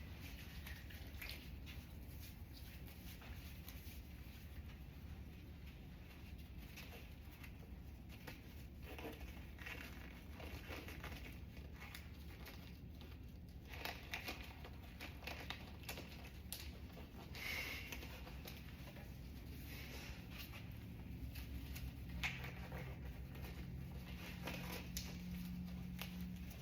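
Faint rustling, crinkling and light clicks of something being handled, over a steady low hum.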